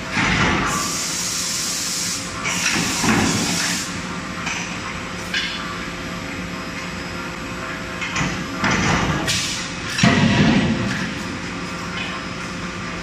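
A 31.5 kJ CNC closed-die forging hammer working hot billets: several heavy blows, the loudest about ten seconds in, with bursts of hissing between them. Under it all runs the steady hum of the shop's running machinery and fans.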